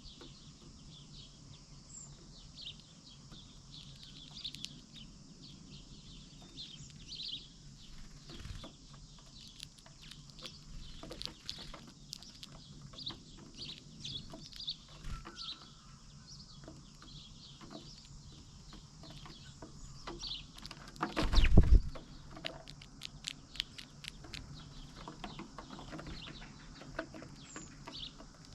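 Birds feeding, with many short high chirps and scattered little clicks throughout. A brief loud noise lasting about a second comes roughly three-quarters of the way through.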